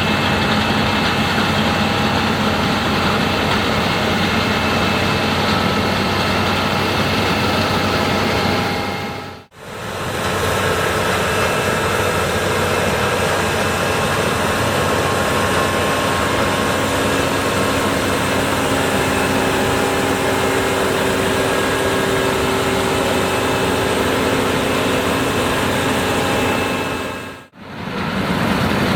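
A Case IH Axial Flow AF10 combine harvester running steadily under load while harvesting wheat: a constant engine and machinery drone with several steady whining tones. The sound dips out briefly and returns twice, about a third of the way through and near the end.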